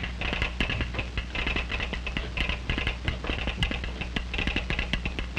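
Telegraph sounder clattering rapidly and irregularly in Morse code, over a steady low hum.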